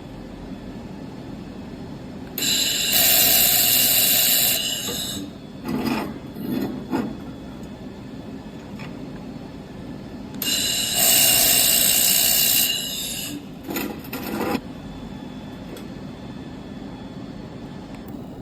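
Handheld fiber laser welding machine firing on stainless steel: two bursts of a couple of seconds each, a hiss with a steady high whine, with shorter, quieter bursts between them, over a steady hum.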